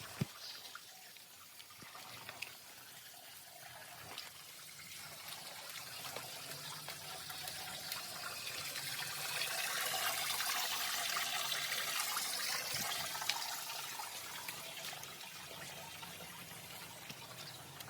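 Spring water pouring and trickling at a village spring's water channel (hija). It grows louder toward the middle and then eases off again.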